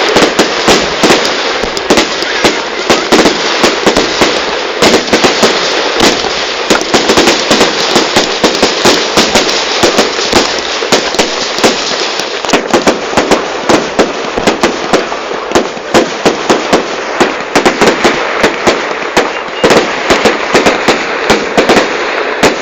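Fireworks going off in a dense, continuous barrage: rapid cracks and bangs, many a second, over a constant crackling hiss, very loud throughout.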